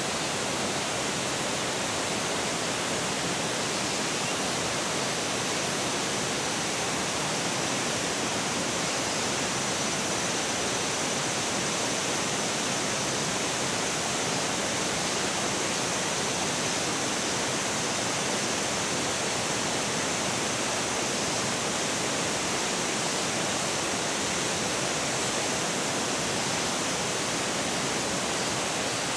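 Steady, unbroken rushing of running water, even in level throughout.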